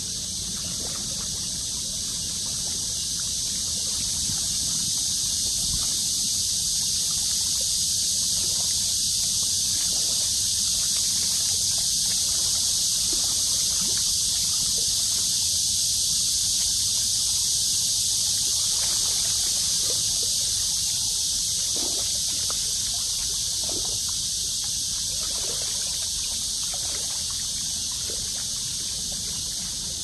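Riverside ambience: a steady, high hiss that swells and then fades, with faint soft splashes of small waves lapping against a rocky bank now and then in the second half.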